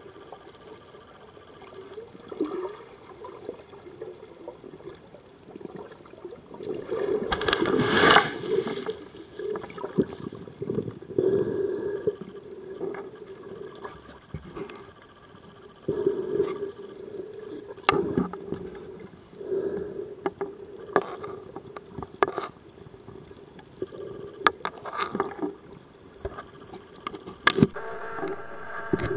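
Water heard from below the surface, muffled: irregular gurgling and sloshing swells with sharp clicks and knocks scattered through, the strongest surge about seven to eight seconds in.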